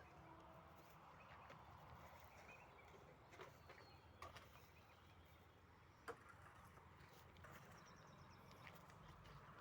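Near silence: faint background noise with a few soft clicks.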